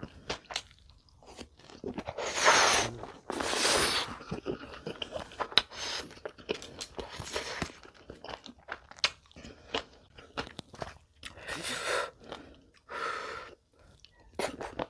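A person chewing crunchy food close to the microphone, with irregular crunches and mouth clicks and a few longer crunching bursts about two to four seconds in.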